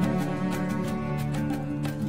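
Instrumental background music with held notes over a steady beat.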